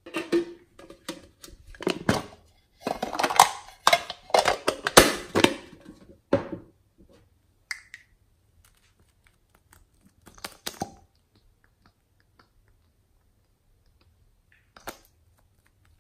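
Hands handling a lipstick tube: several seconds of dense crackling rustles and sharp clicks, then a few isolated clicks as the tube and cap are turned.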